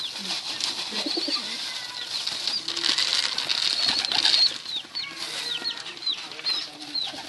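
Pigeons flapping their wings, a rushing flutter that swells about two seconds in and fades after about four and a half seconds. Short, high, falling chirps from birds repeat throughout.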